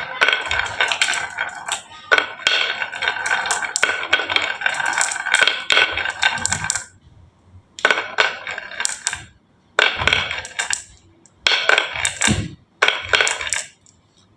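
Marbles rolling and clacking down the wooden tracks of a HABA marble run. There is a continuous clatter with a steady rolling ring for about seven seconds, then four shorter runs of clatter, each about a second long, with short gaps between them.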